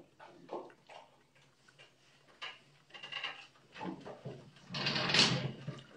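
Fork and knife clicking and scraping on a dinner plate during a meal, in scattered small knocks, with a louder noisy rush a little before five seconds in.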